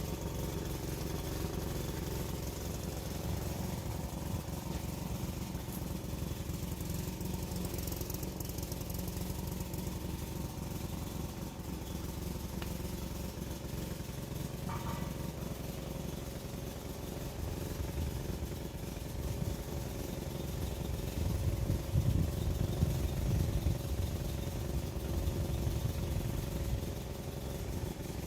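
An engine running steadily, a little louder about three-quarters of the way through.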